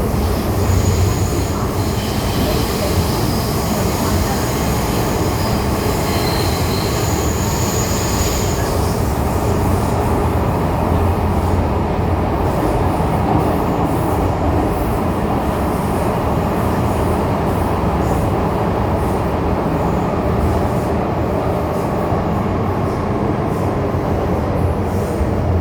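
MTR M-Train electric multiple unit running between stations, a steady rumble of wheels and running gear. High-pitched wheel squeal rings over it for the first eight seconds or so, then fades out.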